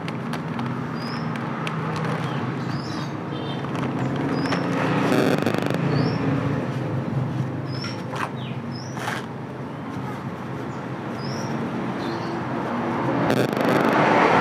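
Scissors cutting and plastic packaging rustling over steady traffic noise. There are bursts of crinkling about five seconds in and again near the end, and short high chirps now and then.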